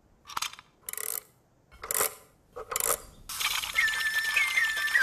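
A jewelled clockwork nightingale being wound and set going: four short ratcheting scrapes, then about three seconds in the mechanism starts up in a whirring, tinkling song with whistled notes that step down in pitch.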